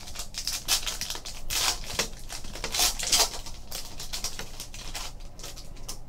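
Foil trading-card pack wrapper crinkling and tearing as it is ripped open, loudest in the first three seconds or so, then quieter rustling as the cards are slid out.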